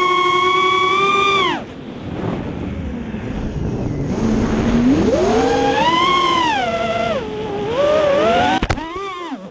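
FPV quadcopter's brushless motors and propellers whining, the pitch rising and falling with the throttle. The whine drops away about a second and a half in, leaving a rush of air, then climbs again and wavers through quick throttle changes, with a brief sharp click near the end.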